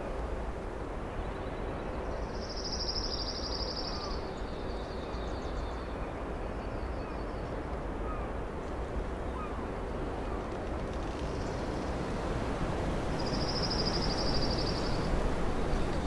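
A small songbird sings two high, rapid trills, each about a second and a half long, one a few seconds in and one near the end, with fainter trills between. A steady rushing background noise runs under them.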